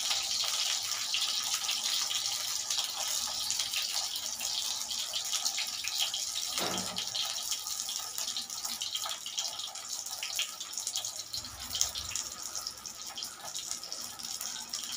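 Shami kebabs frying in hot oil on an iron tawa: a steady sizzle with fine, irregular crackles.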